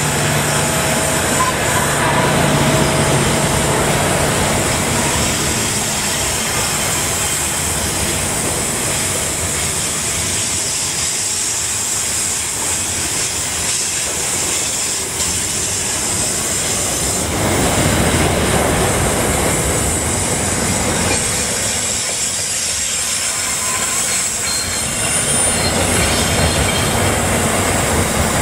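SCT freight train passing close by on a curve. A CSR-class diesel-electric locomotive hums by in the first few seconds, then a long string of louvre vans rolls past with steady wheel rumble, clicking over rail joints and a faint wheel squeal on the curve.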